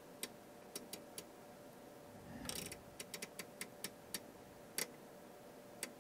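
A rotary range switch on a Tektronix 577 curve tracer being turned, its detents clicking about a dozen times at an uneven pace. There is a brief rustle of handling about two and a half seconds in.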